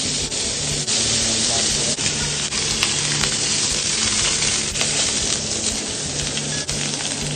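Steady sizzling of a burger patty frying on a flat-top griddle, with scattered light clicks of utensils and a low hum that comes and goes.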